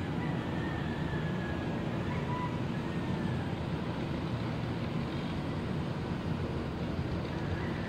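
Distant city traffic heard from high above a busy avenue: a steady low rumble, with a few faint high tones drifting over it.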